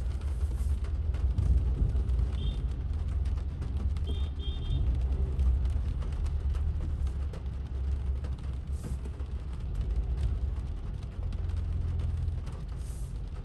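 In-cabin sound of a Toyota Corolla crawling forward in rain: a steady low rumble of the car's engine and running gear, with rain ticking on the roof and windscreen. Short high electronic beeps sound about two seconds in and again around four seconds in.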